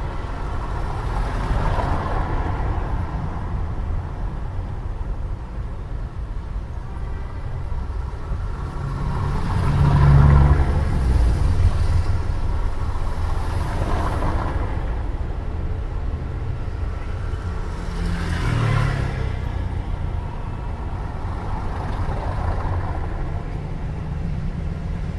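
Urban night traffic: a steady low rumble of distant traffic, with cars passing one after another, about five times, the loudest about ten seconds in.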